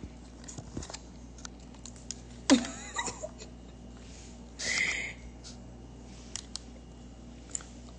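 Scattered light clicks and taps, typical of a phone being handled, with a brief voice sound about two and a half seconds in and a short breathy sound around the middle.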